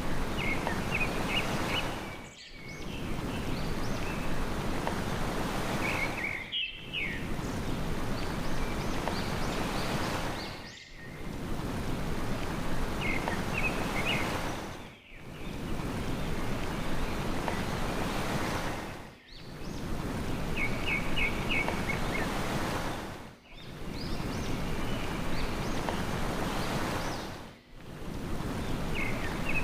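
Steady ocean surf with a small bird chirping in short runs of quick, high notes every few seconds. The whole sound dips out briefly and returns about every four seconds, like a short recording looped.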